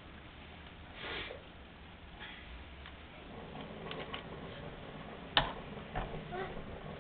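Toy rotary telephone on a tricycle's handlebars being handled: a few scattered plastic clicks and knocks, the sharpest about five seconds in.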